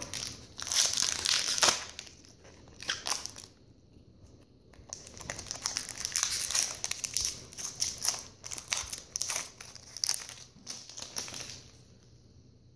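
Foil wrapper of a Pokémon trading-card booster pack being torn open and rustled by hand. The sound comes in two spells, a short one at the start and a longer one from about five seconds in, with a quiet gap between them.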